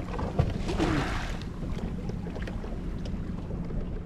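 Wind on the microphone and choppy sea water around a small fishing boat, over a steady low hum from the boat's motor.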